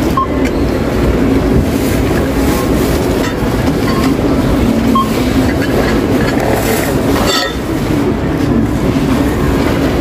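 Supermarket checkout-area ambience: a steady low hum and murmur of a large hall with indistinct voices. Two short beeps and a brief clatter about seven seconds in.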